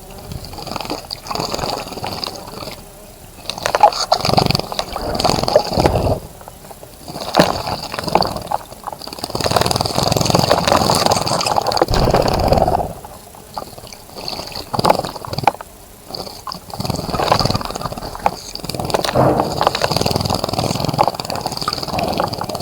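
A bird bathing in a bird bath, splashing the water in repeated bursts of a second to a few seconds with short pauses between.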